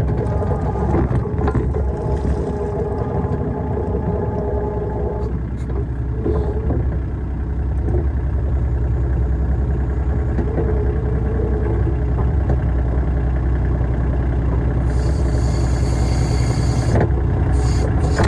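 RK25 compact tractor's diesel engine running steadily while working the backhoe, with a whining tone over the engine that fades out about five seconds in.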